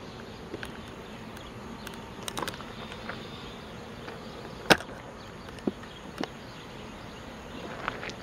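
Quiet outdoor background hiss with a few scattered sharp clicks and taps, the loudest a little past halfway; no train is heard.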